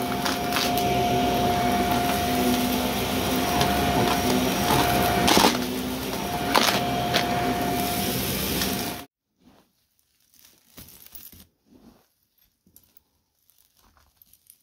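Shark Navigator upright vacuum running, a steady motor whine over airflow noise, with a few sharp crackles as crunchy debris is picked up. The sound cuts off suddenly about nine seconds in, leaving only faint scattered taps and rustles.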